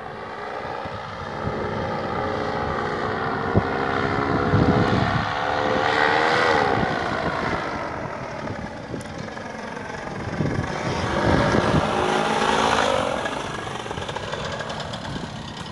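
Paramotor's Vittorazi Moster 185 two-stroke engine and propeller droning overhead. It swells louder twice as the machine flies past, its pitch rising and falling each time, then goes quieter near the end as the pilot comes in to land.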